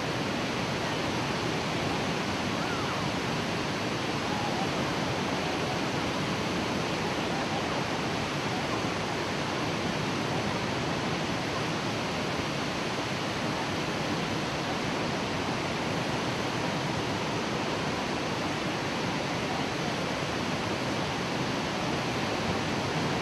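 Waterfall: turbulent water rushing and churning in a steady, even roar, with no breaks or separate splashes.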